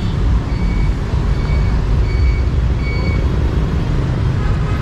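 City street traffic running as a steady low rumble, with a high electronic beep repeating a little faster than once a second that stops about three seconds in.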